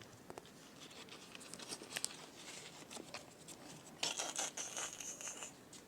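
Soft rustling and crinkling with scattered light clicks, loudest in a scratchy stretch of about a second and a half starting about four seconds in.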